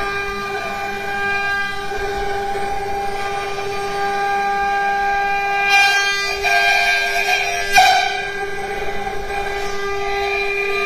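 CNC router spindle running with a steady high whine while its bit carves a wooden workpiece turning on the rotary axis. Between about six and eight seconds in, short rougher cutting noises break in over the whine.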